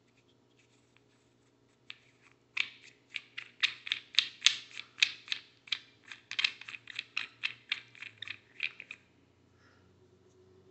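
Wooden hex nut being spun by hand along the threads of a CNC-cut wooden bolt: a rapid run of dry wooden clicks, about five a second, starting about two and a half seconds in and stopping about nine seconds in.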